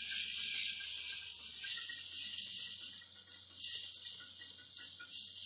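Sliced red onions and cumin seeds frying in hot ghee in a steel kadai, with a steady sizzle as they are stirred with a silicone spatula. The onions are being lightly softened.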